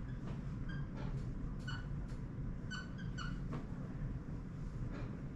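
Several short, high squeaks, each lasting a fraction of a second and scattered through the few seconds, with a few faint clicks over a steady low hum.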